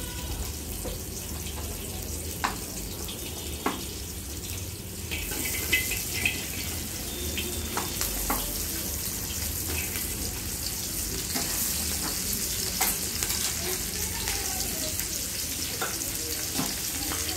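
Hot oil sizzling in a large iron wok as an egg fries. About five seconds in, the sizzle grows louder as chopped green beans go into the oil, with a few sharp clicks along the way.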